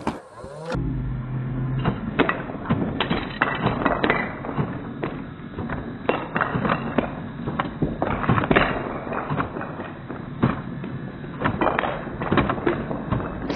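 Wooden Jenga blocks clattering and knocking onto a wooden floor as Nerf darts strike and topple a block castle, with many irregular knocks throughout.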